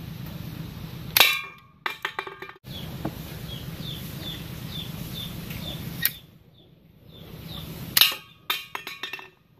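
Bamboo toy gun shooting at empty aluminium drink cans twice: each shot gives a sharp clang as a can is hit, followed by the can clattering as it tumbles and falls. Faint high chirps repeat in between.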